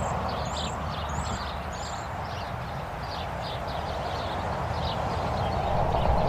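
Steady road traffic noise, swelling toward the end as a vehicle draws nearer. Small birds chirp briefly and repeatedly above it.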